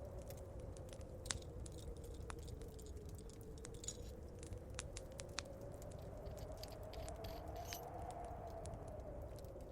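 Fire crackling with scattered sharp pops, over a low howling wind whose pitch slowly sinks and rises again.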